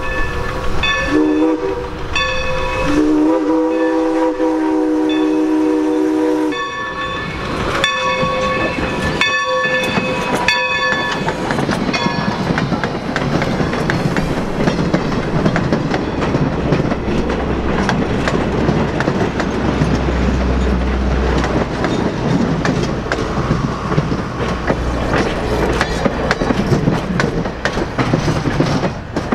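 Steam locomotive whistle of the New Hope & Ivyland's 2-8-0 Consolidation #40, sounding several tones at once, blows a short blast and then a long one lasting a few seconds. About twelve seconds in, the train passes with steady rolling noise and wheels clicking over the rail joints, with a low rumble around the middle.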